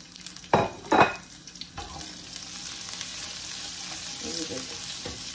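Sliced peppers and onion frying in hot oil in a non-stick pan: two sharp knocks about half a second and a second in, then a steady sizzle that slowly grows louder.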